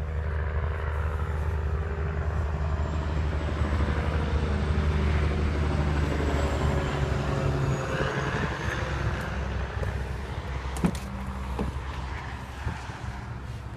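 A motor vehicle's engine running with a steady low hum that fades away after about eight seconds, followed by a couple of sharp clicks.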